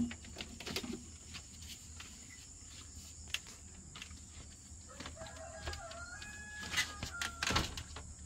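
A rooster crowing once, a call of stepped held notes about five seconds in that lasts a couple of seconds, over scattered light clicks and knocks.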